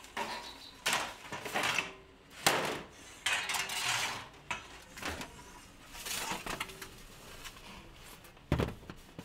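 A baker's metal rod and trays clattering against a brick bread oven in irregular clanks, every second or two.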